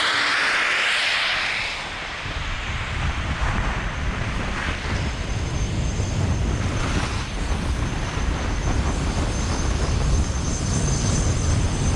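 Skis sliding and scraping over groomed snow during a downhill run, with wind rumbling on the pole-mounted action camera's microphone. A bright hiss in the first two seconds fades out, and the low rumble then takes over.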